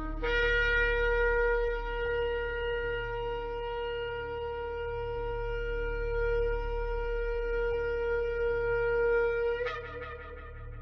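Shofar (ram's horn) sounding one long, steady held blast of about nine and a half seconds, with a brief upward break in pitch as it ends near the close.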